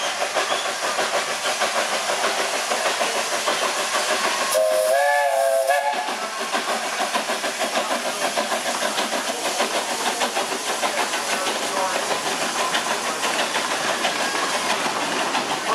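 Narrow-gauge steam tank locomotive Superior running past, with a fast, even rhythm of chuffs and the rattle of its coaches. About four and a half seconds in it sounds a short whistle blast of about a second and a half, its pitch wavering.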